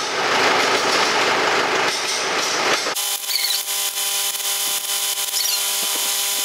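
Come-along hoist being cranked with its lever, the ratchet making a dense, rasping clatter as it hoists a heavy disc harrow. About three seconds in the clatter stops abruptly, leaving a steady hum of several pitches with a few faint clicks.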